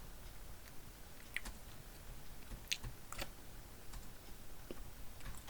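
Faint sounds of someone chewing a raspberry-and-cream mini roll, with a few short sharp clicks scattered through.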